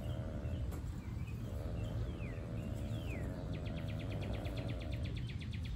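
Outdoor garden ambience: a steady low rumble with a faint droning hum, two short high calls sliding downward near the middle, then a rapid, even trill from a little past halfway to the end.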